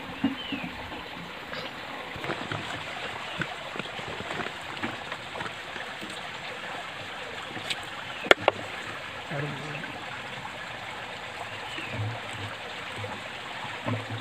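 Steady rush of a nearby stream of running water, with one sharp click about eight seconds in as the knife strikes the steel plate.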